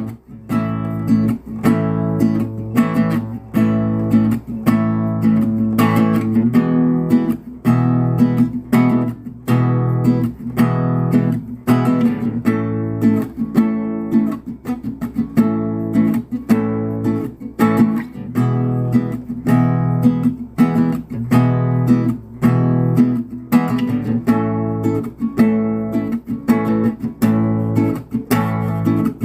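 Acoustic guitar strumming chords in a steady rhythm: the instrumental backing track of a sertanejo song, with no vocals.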